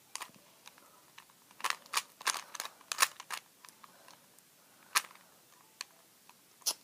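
Plastic Rubik's Cube being turned by hand: sharp clacks as its layers snap round, coming in small clusters with short quiet gaps between.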